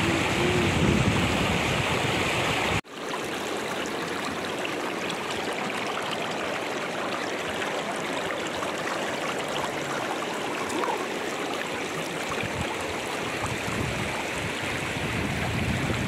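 River water rushing over rocks in rapids, full and low. About three seconds in it cuts off abruptly and gives way to a quieter, lighter sound of shallow water running over stones, steady to the end.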